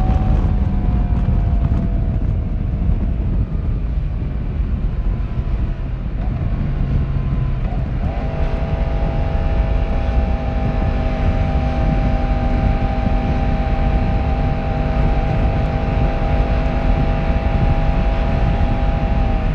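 Yamaha YZF-R1's 1,000 cc inline-four running through its stock exhaust while ridden: the engine note falls as it slows over the first several seconds, then picks up about eight seconds in and holds steady revs, over a low rumble of wind and road.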